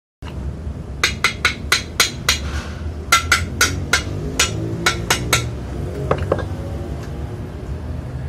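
A hammer striking the steel frame of a homemade coil-spring compressor, in rapid ringing metal-on-metal blows about four a second. The blows come in two runs, then a few lighter taps near the end, over a steady low hum.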